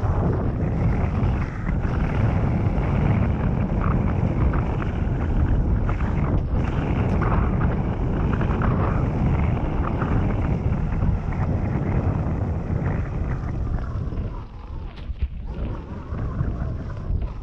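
Wind buffeting the microphone over the tyre rumble of a mountain bike riding downhill on a forest trail, with small knocks over bumps. The noise eases about three seconds before the end.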